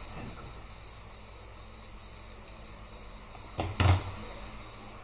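Craft materials being handled on a cutting mat: a steady faint hiss, then two quick knocks close together with a low thump, about three and a half seconds in.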